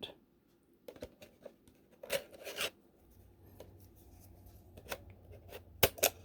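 A 3.5-inch floppy disk being pushed into a Sony Mavica FD75 camera's built-in drive: a series of small plastic clicks and scrapes, with the loudest click near the end. A faint low hum starts about three seconds in.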